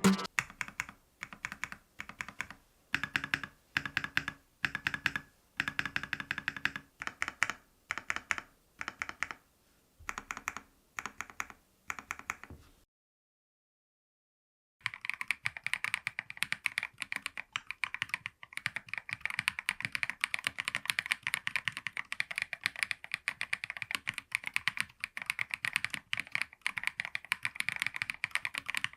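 KiiBOOM Phantom 68 mechanical keyboard with stock Crystal switches: the long stabilized keys are pressed one at a time, each giving a press-and-release clack about once a second. After a brief silence about two-thirds of the way in, fast continuous typing follows.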